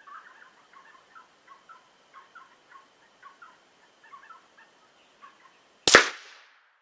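Short chirping bird calls repeat a couple of times a second over a faint steady high tone. Near the end comes a single loud .223 rifle shot from an AR-15 with a 20-inch upper, its report trailing off.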